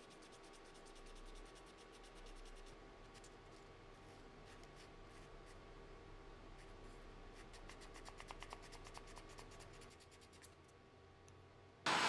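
A small steel knife part being hand-finished with an abrasive stick: faint, quick scraping strokes, a little stronger near the end. In the last moment a torch flame starts with a sudden loud hiss.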